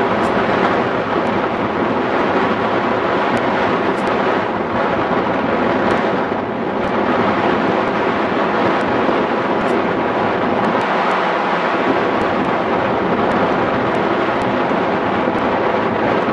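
Wind rushing over the microphone of a hang glider in flight: a loud, steady roar of airflow that eases briefly about six seconds in.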